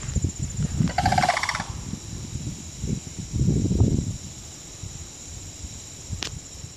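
Sandhill crane giving one short rolling, rattling call about a second in. Low rumbling noise on the microphone runs underneath and swells a little past the middle, with a faint steady high whine throughout.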